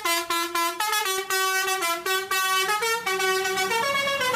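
Telolet-style multi-tone bus horn playing a tune, stepping from note to note every fraction of a second.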